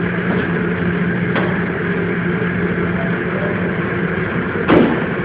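Steady mechanical hum with a constant low tone, with a faint click about a second and a half in and a louder knock near the end.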